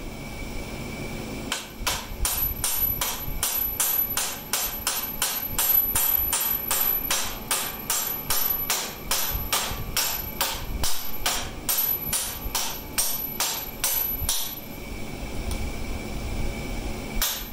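A hammer striking metal in a steady rhythm, about three blows a second, stopping near the end.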